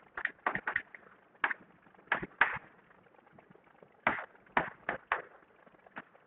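Chalk writing on a blackboard: short scratching strokes in small groups, with pauses between the groups.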